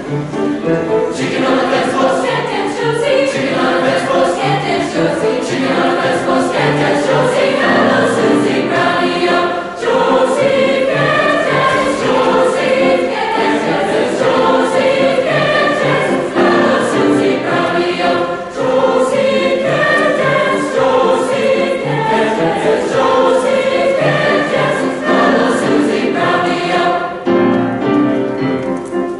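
Mixed-voice choir singing an upbeat, rhythmic party song with piano accompaniment, the sections moving in chords, with brief breaks about ten and eighteen seconds in.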